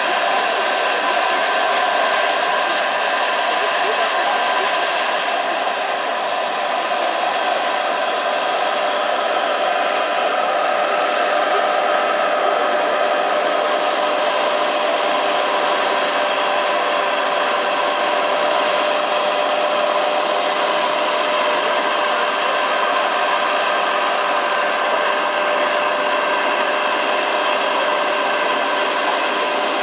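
PHT3 model gas-turbine engine of a large-scale RC Agusta A-109 helicopter running steadily while it hovers, a constant whine with several steady tones over a rushing hiss.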